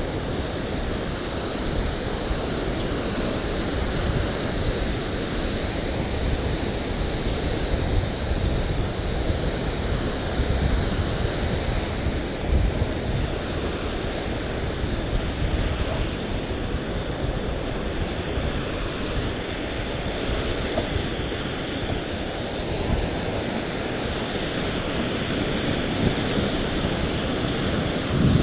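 Steady wind rumble on the microphone mixed with surf washing up the shore.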